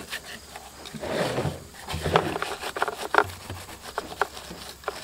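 Scattered light clicks and knocks from a gas chainsaw's plastic housing as it is handled and turned over by hand, with a short rustle about a second in; the engine is not running.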